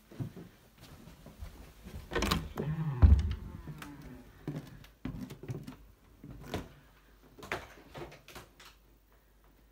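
An interior door being opened, loudest about two to three seconds in and ending in a heavy thud, with light knocks and clicks of footsteps and phone handling on either side.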